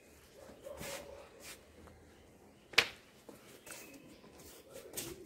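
Soft rustling of blankets and bedding being handled at an open car boot, with one sharp click about three seconds in.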